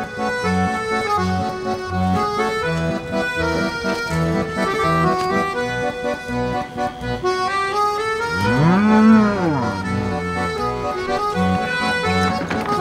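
Accordion music over a steady, pulsing bass line. About eight seconds in, a cow moos once: a long call that rises and then falls, the loudest sound here.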